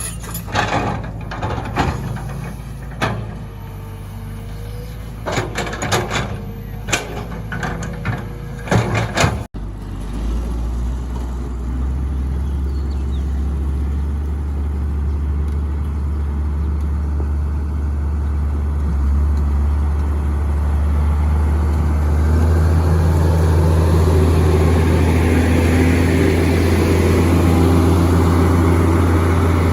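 Heavy road-construction machinery: an engine running under a string of sharp clanks and knocks, then, after a sudden cut about nine seconds in, a steady low engine drone that grows louder toward the end.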